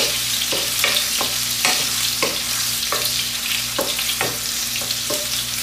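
Pork belly sizzling in its own fat over high heat as it is stir-fried, with the stirring utensil scraping and knocking against the pan about twice a second.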